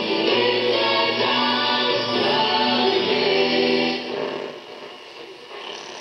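1945 Westinghouse H-125 Little Jewel tube radio playing a broadcast of music with singing through its small speaker. About four seconds in the sound drops away as a knob on the set is turned.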